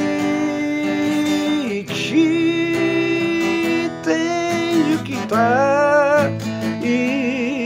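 A man singing long, drawn-out notes, some with vibrato, over a strummed acoustic guitar.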